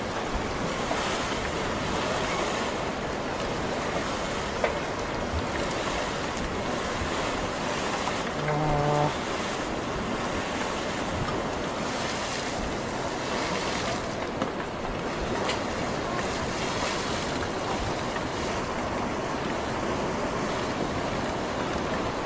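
Steady rushing of wind and surging tsunami water, with a brief flat-pitched tone about eight and a half seconds in.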